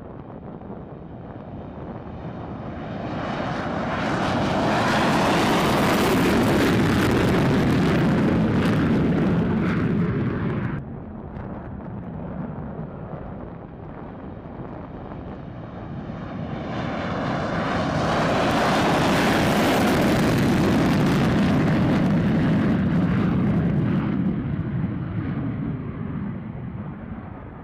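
F-15 Eagle fighter jet taking off at full thrust with afterburner, its twin turbofan engines building to a loud, rushing noise as it passes. The first takeoff swells from about three seconds in and cuts off suddenly about eleven seconds in; a second takeoff swells from about sixteen seconds and fades away near the end.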